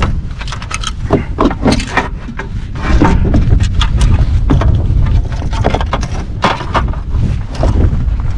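Repeated knocks, clatters and rattles of gear being handled on a plastic fishing kayak, over a low rumble of wind buffeting the microphone.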